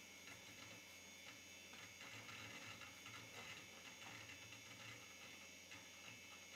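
Faint, irregular ticking and clicking of the VAXstation 4000-96's hard disk seeking as OpenVMS loads and runs its startup procedure. The ticks are busiest a couple of seconds in, over a steady machine hum.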